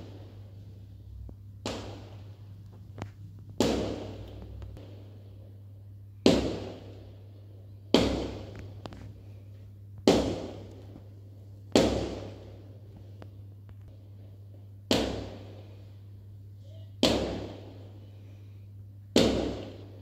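A series of sharp bangs or knocks, about nine of them at slightly uneven intervals of roughly two seconds. Each cuts in suddenly and fades over about a second, over a steady low hum.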